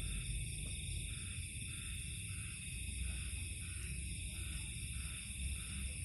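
Steady high-pitched chorus of night insects, unbroken and even, over a low rumble.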